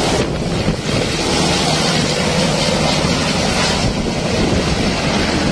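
Low-flying Black Hawk-type military helicopter passing overhead, its rotor and engine noise loud and steady, mixed with wind buffeting the phone's microphone.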